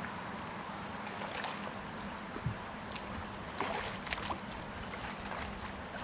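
Steady rush of a shallow river running over rocks, with a few brief sharp sounds near the middle.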